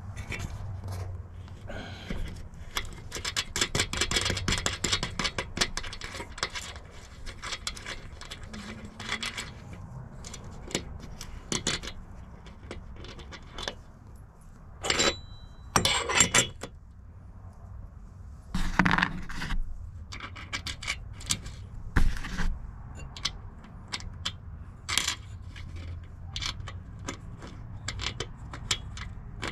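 Small metal clicks, clinks and scrapes of a bolt, nut and aluminium Z mounting bracket being handled and fitted by hand against a solar panel's aluminium frame, with a handful of louder knocks in the second half.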